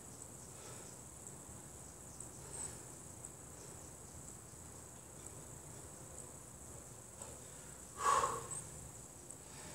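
Quiet room tone with a thin, steady high-pitched whine throughout. A short, louder sound comes about eight seconds in.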